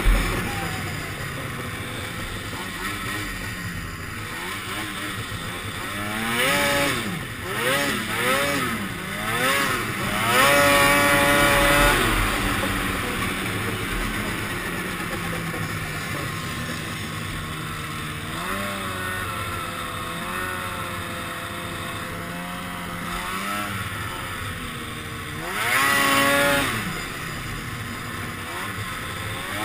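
2002 Polaris 440 Pro X snowmobile's two-stroke twin engine revving up and down while being ridden. There is a run of quick revs about a quarter of the way in, then a longer hold at high revs, a steadier stretch in the middle, and another rev near the end.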